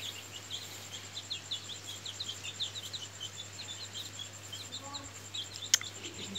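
Asil chicks peeping: many short, high, falling peeps, several a second, with a sharp click near the end. A faint, steady, high pulsing tone runs underneath.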